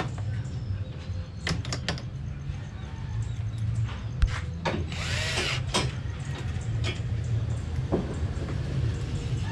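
Cordless drill briefly run to drive screws that fasten concealed cabinet hinges to a plywood door panel. The motor's pitch rises and falls in a short burst about halfway through. Before it come a few sharp clicks of the metal hinges being handled, all over a steady low hum.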